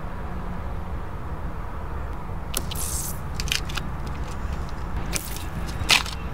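A car tyre rolling over an object and crushing it: a run of crunching and crackling about two and a half seconds in, then one sharp crack near the end, over a low steady rumble.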